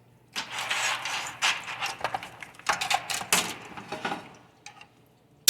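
Metal parts and tools being handled on a workbench: a few seconds of irregular clattering with sharp knocks and scrapes while the compressed-air nozzle is picked up, then quiet.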